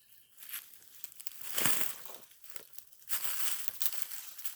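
Irregular rustling and crackling of dry leaves, twigs and vines as someone pushes through thick undergrowth, with a louder crackle about halfway through and another near the end.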